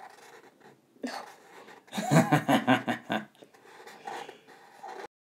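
A person's soft chuckling and wordless voice sounds, loudest around two to three seconds in, before the audio cuts off abruptly near the end.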